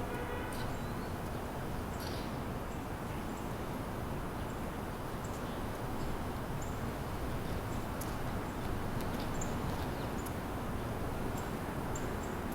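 Small birds giving short, high chirps every second or so over a steady low rumble of city traffic.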